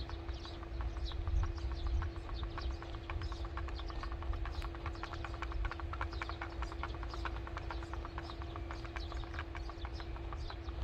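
Wind-driven pinwheel bird-and-mole repeller spinning on its stake and clicking rapidly and evenly, several clicks a second, under gusty wind rumble on the microphone, with a steady hum throughout.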